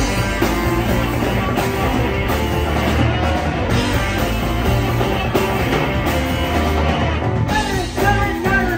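Live rock band playing loud: electric guitars, bass guitar and drums.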